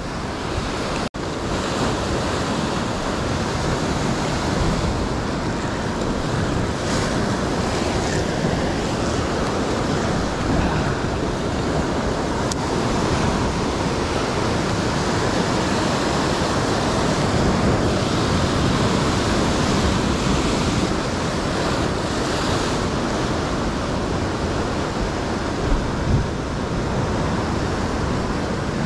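Ocean surf breaking and washing over rock ledges in a steady rush, with wind on the microphone.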